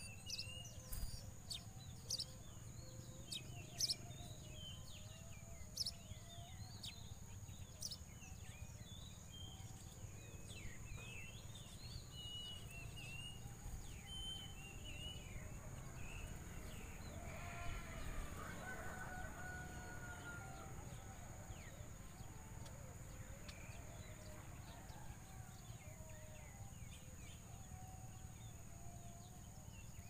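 Faint outdoor birdsong: many short chirps and calls, thickest in the first half, over a steady high-pitched whine and a low rumble.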